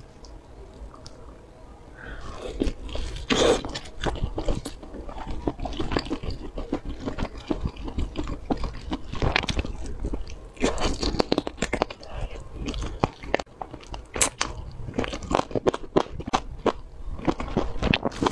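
Crunching bites and chewing of crispy battered fried chicken: many sharp crackles in quick, uneven succession, starting about two seconds in.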